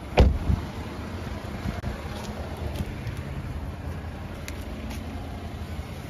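A loud thump just after the start, then a steady low rumble of a motor vehicle.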